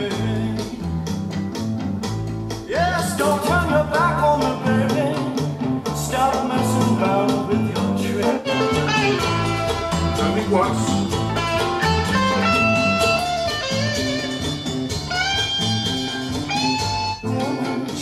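Blues music with guitar played back through a pair of MB Quart 800 loudspeakers for a listening test.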